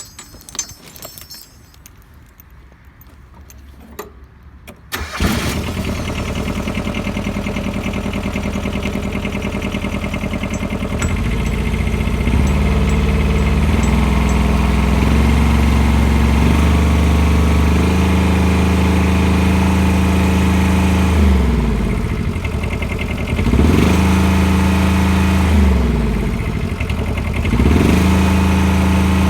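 Kubota combine harvester's diesel engine cranks and starts about five seconds in, after a few faint clicks. It runs steadily, is raised to a higher speed a few seconds later, and its revs dip briefly and recover several times near the end.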